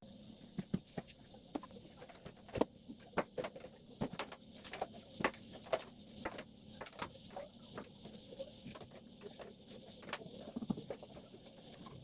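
Irregular light knocks and clicks, roughly one or two a second, of household objects being handled and set down during cleaning.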